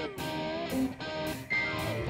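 Electric guitars playing a rock-and-roll intro on a live stage, with notes sliding down in pitch and chords cut short in a choppy rhythm, before the drums come in.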